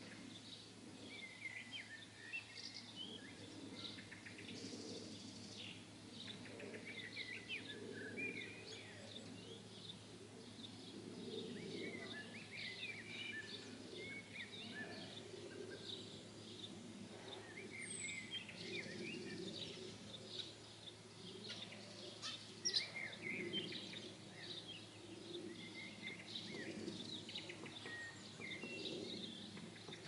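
Several songbirds singing, with short high chirps and trills scattered throughout, over a faint, steady low background noise. A single sharp tick stands out about three-quarters of the way through.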